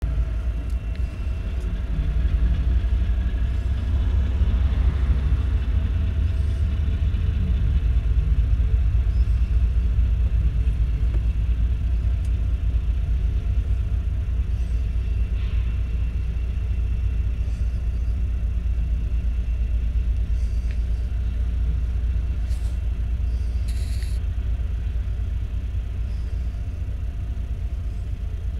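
Freight train of boxcars rolling past at close range: a loud, steady low rumble of steel wheels on the rails that eases a little toward the end, with a few faint brief high squeaks or clicks.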